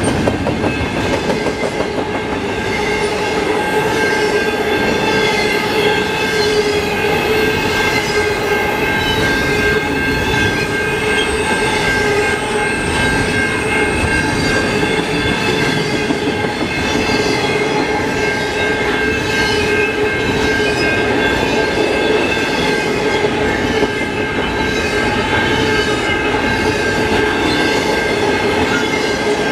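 Freight train of intermodal container well cars rolling past: a steady rumble of steel wheels on rail with a regular clickety-clack and steady high-pitched wheel squeal.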